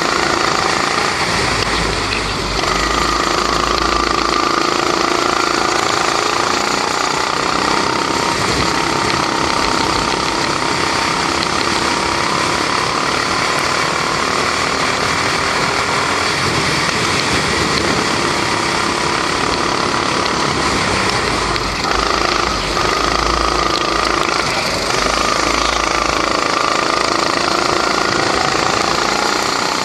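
Rental go-kart's 270cc four-stroke Honda single-cylinder engine, heard from on board, running hard at speed. Its pitch rises and falls as the throttle is opened and lifted through the corners, with a few brief dips in loudness.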